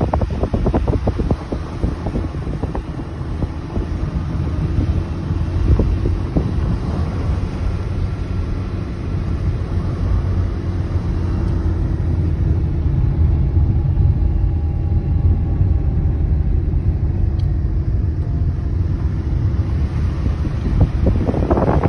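Car driving at speed, heard from beside its window: a steady low rumble of engine and tyres, with wind buffeting the microphone, heaviest near the start and again near the end.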